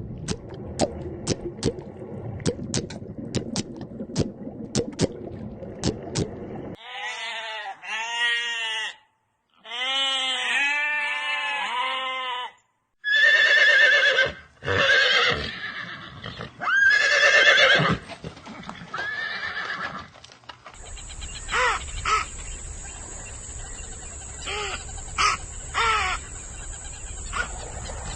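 A succession of different animal calls from short clips: first a rapid run of sharp clicks, then repeated short rising-and-falling calls, then louder, longer calls. Near the end a steady high whine runs under scattered clicks.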